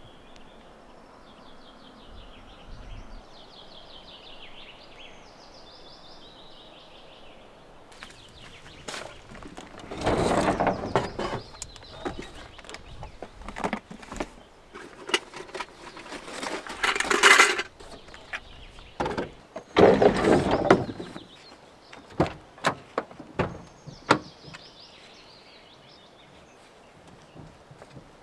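Birds singing for the first several seconds. Then come knocks, clicks and several loud rustling bursts as things are handled and moved around in the open back of a pickup truck. Faint birdsong returns near the end.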